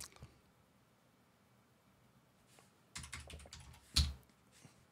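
Typing on a computer keyboard: a quick run of keystrokes about three seconds in, entering a number, followed by one harder key press.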